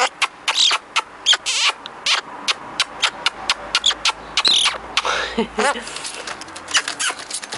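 Pet magpie making a string of sharp clicks, about four a second, with a few short squeaky calls mixed in.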